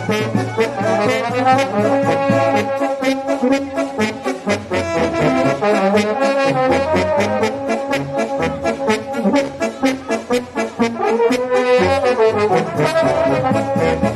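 Romanian fanfare brass band playing a tune: tubas, tenor horns, trumpets and saxophones in held, moving melody lines over a steady bass drum beat.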